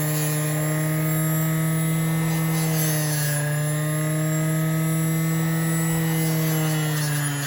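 Electric bench buffer spinning a fiber wheel, its motor running with a steady hum; the pitch sags slightly about three seconds in and drops near the end.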